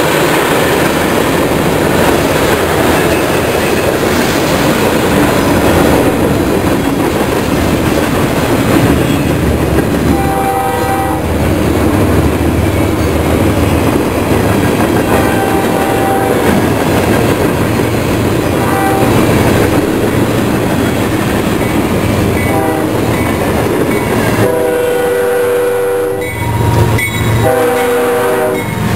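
Freight train cars rolling past with steady wheel clatter and rumble. A CSX GE ES44 diesel locomotive's engine rumble builds as it comes on, and its multi-note air horn sounds in short blasts from about ten seconds in, then in longer, louder blasts near the end as it passes close.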